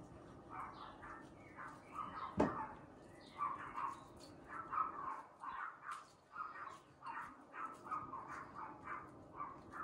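Repeated short animal calls in quick runs of several a second, with a single sharp knock about two and a half seconds in.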